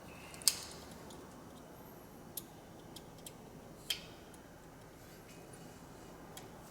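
A few scattered sharp clicks and light knocks of parts and tools being handled during the A/C condenser swap. The loudest comes about half a second in, with more near two and a half and four seconds, over a faint steady hiss of room noise.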